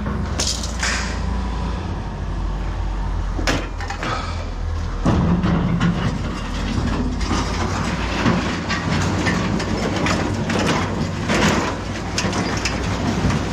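Vehicle running with a steady low rumble, with frequent light rattles and knocks over it.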